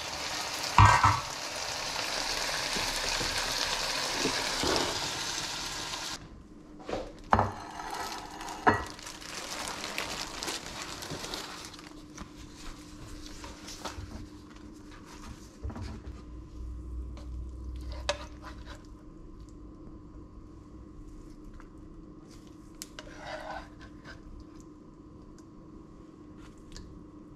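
Chicken hearts sizzling in oil in an uncovered frying pan, with a metal clank about a second in. The sizzling cuts off about six seconds in and gives way to quieter scattered clicks and handling noises over a faint steady hum.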